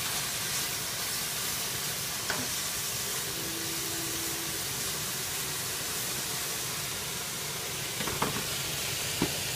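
Chopped summer vegetables frying in oil and balsamic vinegar in a skillet: a steady sizzle as they are stirred with a spatula, with a few light knocks, one near the middle and a couple near the end.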